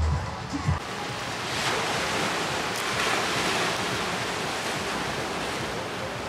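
Small waves breaking and washing over a rocky shore in surges, with some wind on the microphone. The tail of background music fades out in the first second.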